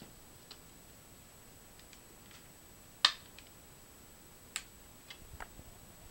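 A few sharp plastic clicks from an Asus Eee PC 1005HA netbook's plastic screen bezel being pressed and pried with a small screwdriver. One loud click comes about three seconds in, another about a second and a half later, then several fainter ones close together.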